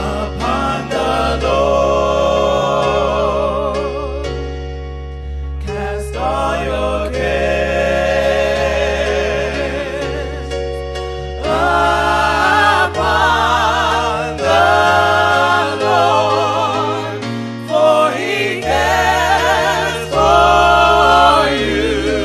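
Gospel music: singers holding notes with vibrato over sustained keyboard chords and a bass line that steps between low notes.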